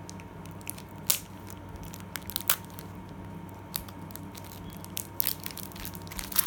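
Foil wrapper of a Pokémon card booster pack being bitten and torn open: sharp crackles and rips about once a second, coming thicker near the end.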